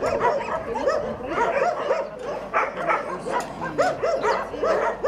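Dogs barking and yelping in quick, overlapping barks.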